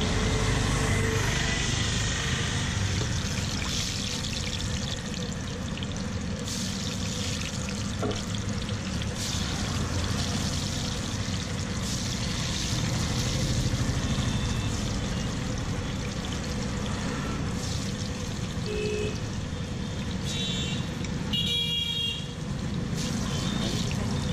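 Medu vadas (urad dal fritters) sizzling in a kadai of hot oil, over the rumble of street traffic. A vehicle horn honks briefly near the end.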